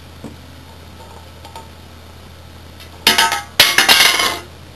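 Hard plastic K'NEX gun parts clicking and rattling as a shot is attempted and the gun fails to fire. A quick run of sharp clicks about three seconds in, then a louder clatter lasting nearly a second.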